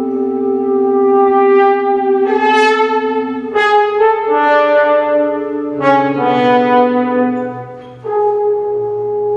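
French horn playing long held notes with organ accompaniment. Each horn note swells louder and brighter, and a new note enters about every one to two seconds, with a brief dip just before a fresh note near the end.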